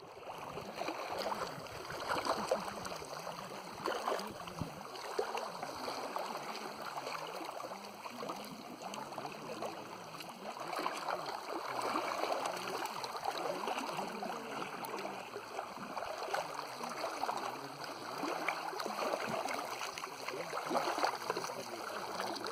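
Small waves of a lake lapping and gurgling among stones at the water's edge, a steady wash that swells every few seconds.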